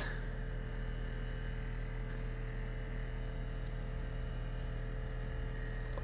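Steady low electrical hum with a few faint steady tones above it, from a microwave oven transformer running off an audio amplifier.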